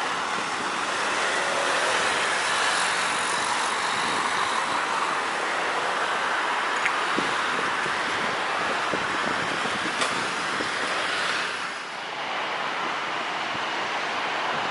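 Jet engines of a Citilink Airbus A320-200 at takeoff power, a steady rushing noise heard from beside the runway as the airliner rolls and lifts off. About twelve seconds in, the sound dips and gives way to a duller jet noise from another A320 on approach.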